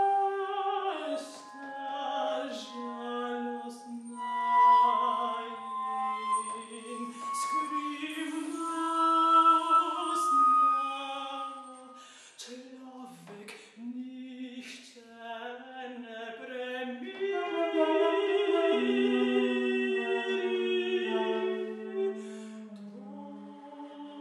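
Mezzo-soprano singing with a flute in a contemporary classical duet, the voice holding and bending long notes around the flute line, with short sharp attacks scattered through. A quieter stretch comes in the middle before both swell again.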